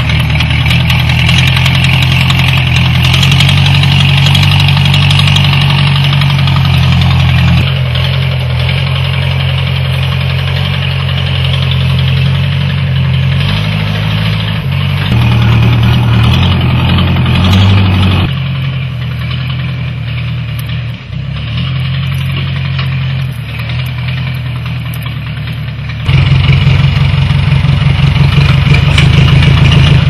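Case bulldozer's diesel engine running steadily, its loudness and tone changing abruptly a few times.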